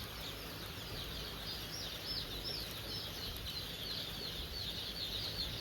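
A flock of young chicks peeping: many short, high chirps, each falling in pitch, overlapping without a break.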